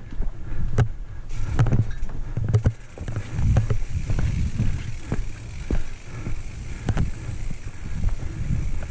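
Full-suspension mountain bike, a Santa Cruz Nomad, riding fast down rocky singletrack: a rough, shifting rumble of tyres over rock slab and dirt, broken by frequent sharp clacks and rattles from the chain and frame over bumps.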